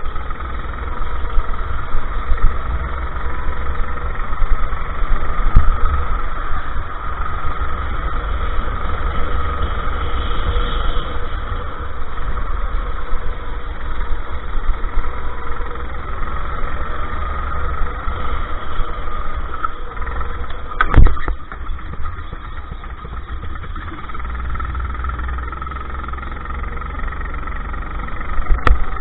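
Go-kart engine running at racing speed, heard from an onboard camera with heavy wind rumble on the microphone. A sharp knock sounds past the two-thirds mark, and another near the end.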